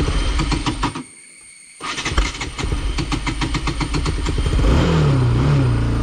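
Motorcycle engine running, then going quiet for under a second and picking up again about two seconds in. It settles into an idle and is revved up and down near the end. The engine has been cutting out and restarting since the bike fell, and the rider suspects it may have flooded.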